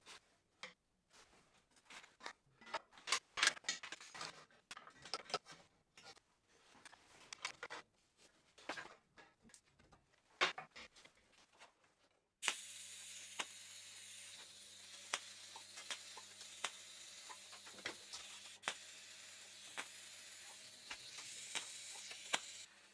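Steel parts and a clamp being handled on a steel welding table: scattered clicks and clinks. About halfway through, a TIG welding arc strikes and runs as a steady hiss with a low hum and a few ticks, then cuts off just before the end.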